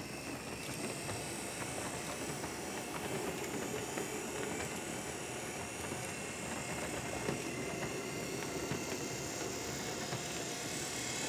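Piko G scale 0-6-0 saddle tank model locomotive running under power, its electric motor and gears giving a steady hum as it pulls a boxcar and caboose around brass track, with many light clicks from the wheels on the rails.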